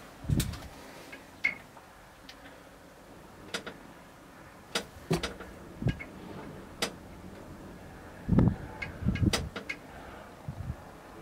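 Irregular clicks and a few dull knocks from the camera being handled and panned, scattered over a quiet outdoor background.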